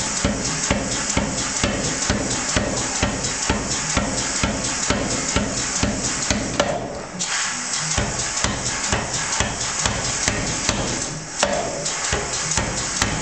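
Power hammer pounding a red-hot bar end in a ball swage, forging it into a round ball: a fast, even run of blows, about five a second, with a break of about a second midway.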